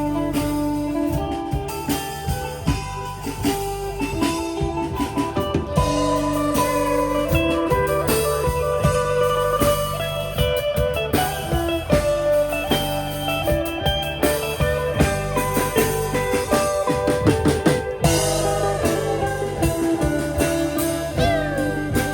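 Background music: a blues-style guitar track with bass and drums.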